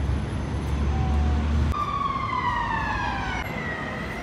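Emergency vehicle siren wailing: a loud tone starts a little under halfway in, falls slowly in pitch, then begins to rise again near the end. A low rumble underlies the first part.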